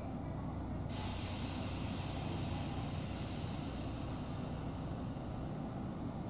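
A sudden hiss of compressed air venting from a Kobe Electric Railway train, starting about a second in and slowly dying away, over a steady low rumble.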